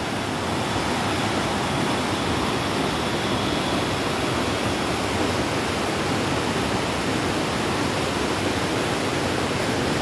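Strong whitewater rapids of a rocky stream rushing steadily over boulders, a dense, even roar of water.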